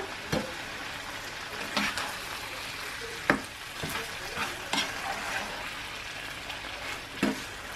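Chicken curry and rice sizzling in a frying pan while a slotted spatula stirs and turns them, with a steady hiss and a few sharp knocks and scrapes of the spatula against the pan.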